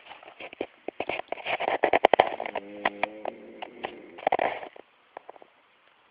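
Snoring: crackling, clicking breath noise, with one short pitched snore about two and a half seconds in and a brief noisy breath about four and a half seconds in.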